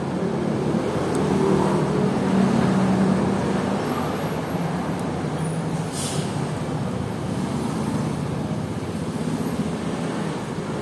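Steady road traffic with engines running, and one brief click about six seconds in, as a pick works the coin-cell battery out of a digital caliper.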